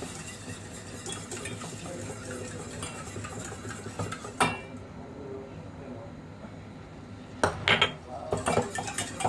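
Butter sizzling faintly in a pot as it melts for a béchamel, while a spoon stirs it. The spoon knocks sharply against the pot about halfway through, then clatters against it several times near the end.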